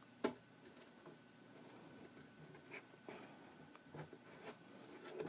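Faint handling sounds from the two halves of a 3D-printed plastic ukulele body being slid and pressed together by hand: a light click just after the start, then a few soft rubs.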